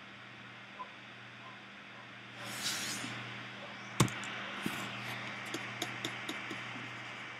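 Faint computer-desk clicks while working in a painting program: one sharp click about four seconds in, then a string of lighter clicks and taps, over a steady low electrical hum. A short breathy hiss comes just before the first click.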